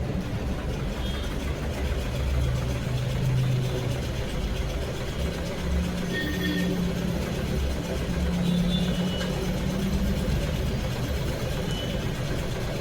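An engine running steadily with a low hum; its pitch rises a little about five seconds in.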